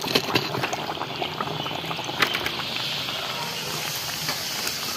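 A green-pea masala puri deep-frying in hot oil in a black iron kadhai: a steady sizzling crackle of bubbling oil, with a few sharper pops.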